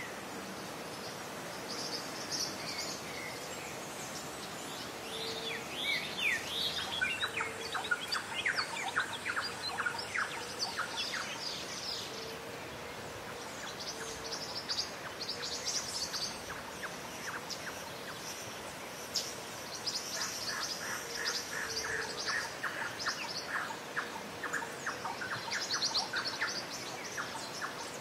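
Morning ambience of many birds calling and chirping over a steady background hiss. There are trains of quick repeated notes and scattered high chirps, and a soft low hoot recurs now and then.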